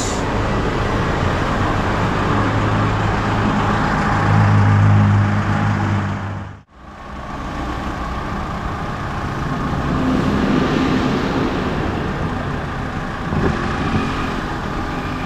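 A motor vehicle engine running steadily with a low hum that swells about four to five seconds in. The sound drops out for an instant a little before the middle.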